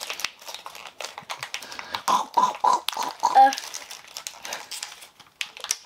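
Small plastic clicks and taps from handling a Mini Brands capsule and its miniature toy burger. About two seconds in comes a quick run of about five short mock munching noises from a person.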